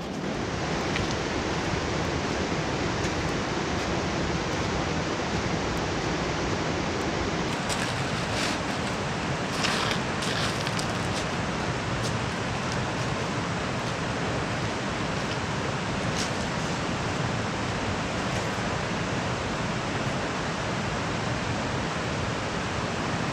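Steady rushing of a river flowing fast over rapids, with a few faint clicks about eight to ten seconds in.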